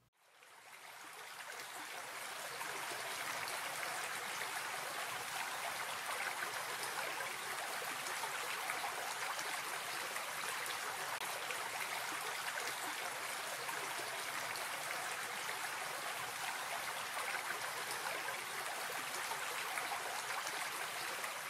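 Small rocky stream babbling over stones, a steady rush of water that fades in over the first couple of seconds.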